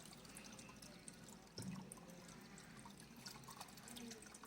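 Water being poured into a pet water fountain's reservoir: faint pouring and dripping, with a short low sound about a second and a half in.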